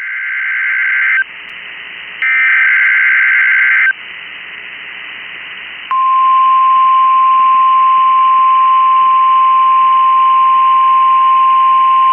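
NOAA Weather Radio Emergency Alert System alert over a hissing radio receiver: two bursts of SAME header data tones, a harsh two-pitch screech each lasting under two seconds, then about six seconds in the steady 1050 Hz Weather Radio warning alarm tone starts and holds at one pitch.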